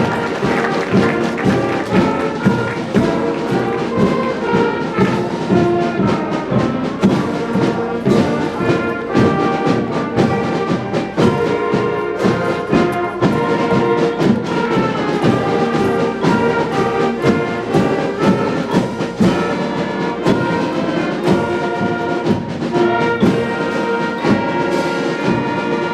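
Band music led by brass, with held chords over a steady beat.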